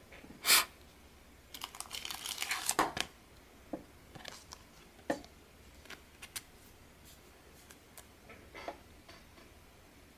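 Thin clear plastic card sleeve crinkling and rustling as a trading card is handled and slipped into it. There is one sharp crackle about half a second in, a longer crinkling stretch around two to three seconds, then scattered light clicks and rustles.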